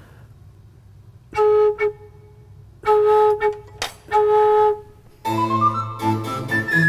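A single flute-toned organ pipe note, sounded and held briefly three times, as a pipe of the 1700s Giovanni Fedeli church organ is tested during voicing and tuning in its restoration. About five seconds in, a passage of several notes at once with a bass line starts.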